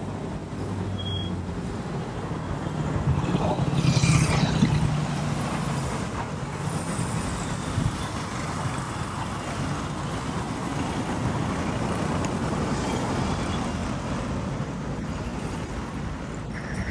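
Road traffic: car engines and tyre noise, swelling louder for a couple of seconds about four seconds in as a vehicle passes close.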